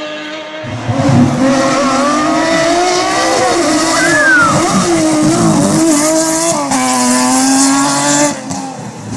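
Lancia Stratos rally car's Ferrari Dino 2.4-litre V6 running hard, its pitch rising and falling. A loud rush of tyre and road noise with some tyre squeal starts about a second in and stops shortly before the end.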